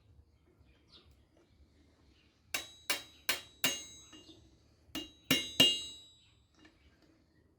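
Hammer blows on steel at an anvil while forging iron lamp stakes: a run of four ringing strikes, a short pause, then three more, the last the loudest.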